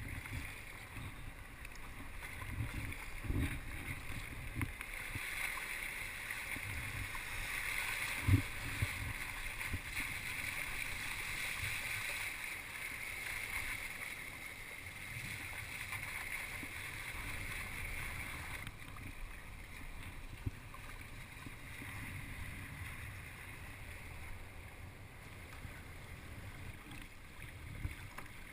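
Water rushing and splashing around a sea kayak under way, with wind buffeting the microphone and a few sharp knocks, the loudest about 8 seconds in. The water noise eases a little after about 19 seconds.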